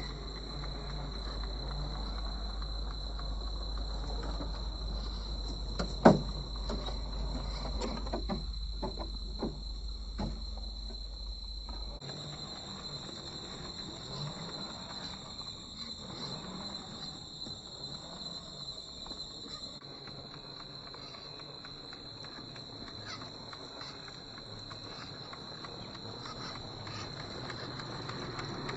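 1/10-scale Traxxas TRX-4 rock crawler working over rocks: a sharp knock about six seconds in, then a run of clicks and knocks for several seconds, over a steady high-pitched whine.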